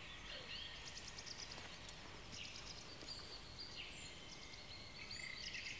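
Faint birdsong, short chirps and trills repeating, over a low steady background hiss.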